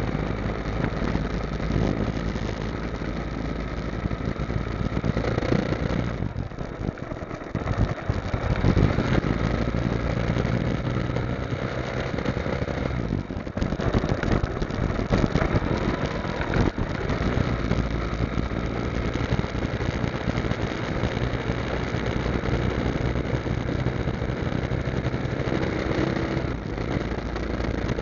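Motorcycle engine running while riding. The engine note drops about six seconds in, then pulls strongly again about two seconds later.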